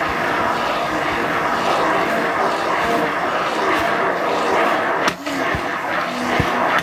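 Immersion blender running steadily, its blade churning a thick mayonnaise-based sauce in a small plastic bucket. The sound dips briefly about five seconds in.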